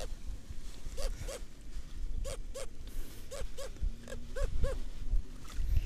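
An animal calling in short, evenly pitched notes, mostly in pairs, about one pair a second, over a steady low rumble.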